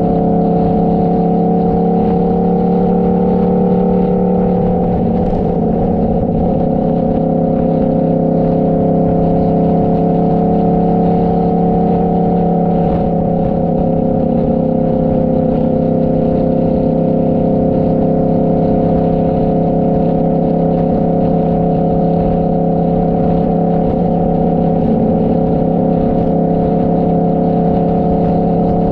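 Motorcycle engine running at a steady cruising speed over a constant low rumble, its pitch dipping slightly about five seconds in and then holding steady.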